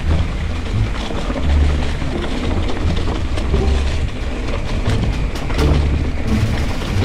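Mountain bike descending a rough dirt trail: wind buffeting the microphone, with tyre rumble and many short rattles and clicks from the bike.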